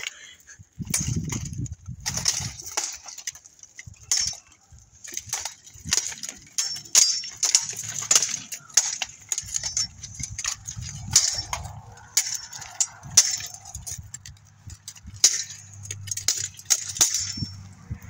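Steel swords striking plate armour and armour plates clanking as two armoured fighters spar at close quarters: a run of sharp, irregular metal clanks and clashes.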